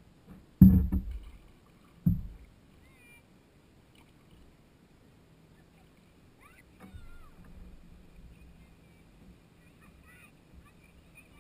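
Canoe on the water, heard through a camera suction-cupped to its hull: two loud thumps about a second and a half apart near the start, then quiet water and hull noise with a few faint chirps.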